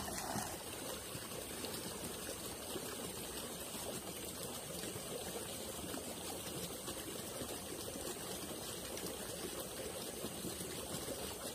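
Flowing river water running steadily, with a constant high hiss over it.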